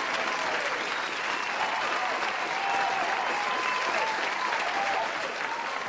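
A crowd applauding steadily, with scattered shouts rising and falling over the clapping.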